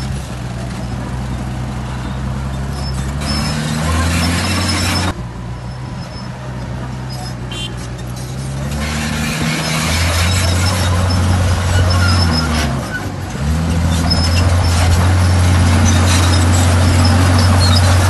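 Komatsu D51PX bulldozer's diesel engine running under load, its pitch climbing, falling and climbing again several times as the revs change. Faint intermittent high squeaks sound over the engine.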